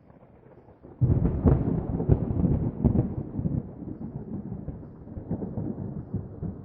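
A thunderclap about a second in: a sudden loud crackling crash, then a low rolling rumble that slowly fades.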